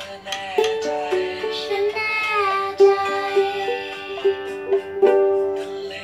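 Small soprano ukulele strummed in a steady rhythm, its chords ringing between strokes, with a child's voice singing a few falling notes around the middle.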